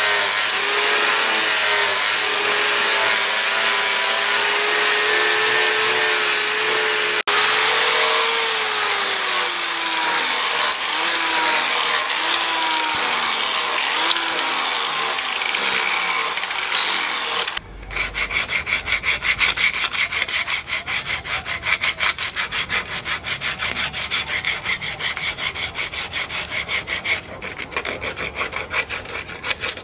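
Angle grinder with an abrasive disc grinding the steel cleaver blade, its whine dipping and gliding in pitch as the disc bites. A little over halfway through it stops abruptly, giving way to rapid back-and-forth rubbing strokes as the wooden handle is sanded by hand.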